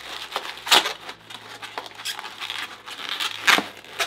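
White 260 latex twisting balloon rubbing and squeaking against itself under the fingers as the tied end is pushed into the balloon body, with two sharper, louder rubs, one under a second in and one near the end.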